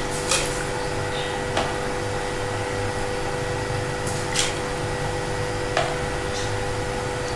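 A steady mechanical hum with a low rumble, broken four times by short light clicks as chana dal is added by hand to an aluminium pot of water.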